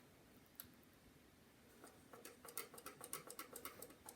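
A cotton swab scrubbing old thermal paste off a laptop's processor. Short scratchy rubbing strokes, about three a second, begin about two seconds in.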